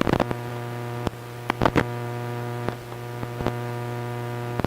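Steady electrical mains hum with a stack of overtones, with several sharp clicks and taps: one at the start, one about a second in, a quick cluster around a second and a half, and another near three and a half seconds. The clicks are small tools being handled while desoldering a circuit board.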